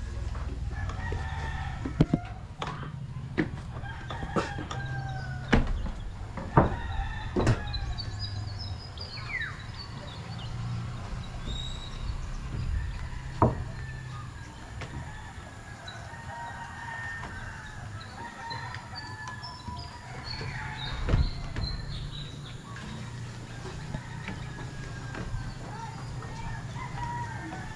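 Roosters crowing and chickens clucking, over a steady low rumble. Sharp knocks come several times, loudest in the first half and once more past the middle.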